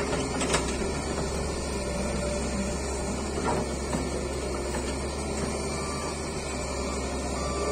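Doosan wheeled excavator running steadily as its boom and bucket dig into dry soil, with a couple of short knocks, one about half a second in and another about three and a half seconds in.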